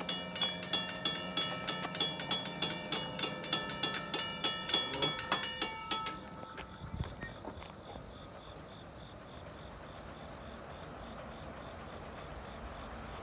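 Railroad grade-crossing bell ringing in rapid, evenly spaced strokes; about halfway through it cuts off and a steady high-pitched insect chorus takes over.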